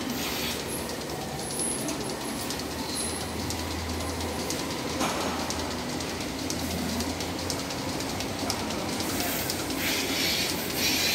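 Rotary milking parlour running: a steady mechanical rumble and clatter with a low hum, and bursts of hissing air near the end.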